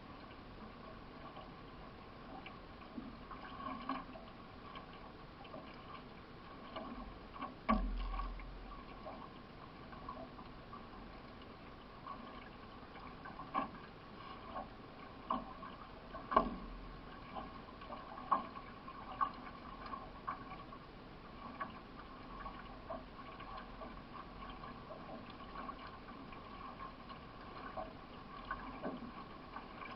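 A solo racing canoe being paddled: water washing steadily along the hull, with paddle strokes splashing and knocking every second or two, the loudest about 8 and 16 seconds in.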